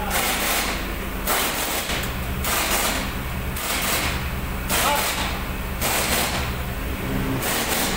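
Pickup truck engine idling with its hood open, overlaid by a short, sharp hissing whoosh that repeats about once a second.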